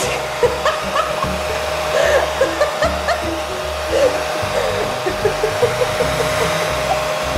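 Dog grooming dryer blowing air through its hose nozzle: a steady loud rush of air with a constant whine.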